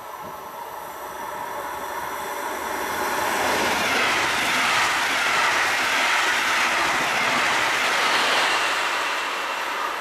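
Red double-deck regional passenger train passing the platform on the far track. The wheels on the rails grow to a loud rush about four seconds in, stay loud, and ease off near the end as the train runs away.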